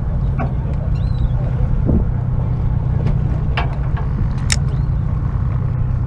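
Charter fishing boat's engine running with a steady low drone, with a few short sharp clicks over it.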